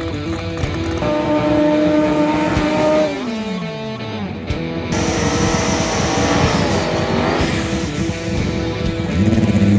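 Drag-race car engines revving hard during smoky burnouts, with tyres spinning on the track and one engine falling in pitch about three seconds in. Rock music plays underneath.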